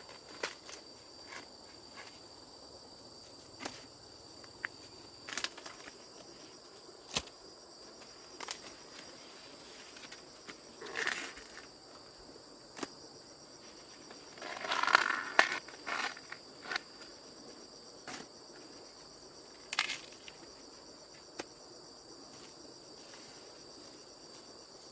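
Steady high-pitched insect chorus, like crickets, under scattered cracks and rustles of dry corn plants being handled during the harvest, with a louder rustling burst about fifteen seconds in.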